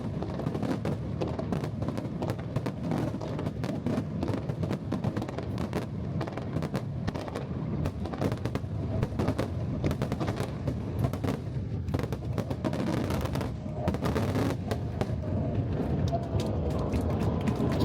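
Aerial fireworks going off in a rapid, continuous barrage of bangs and crackles, typical of a finale.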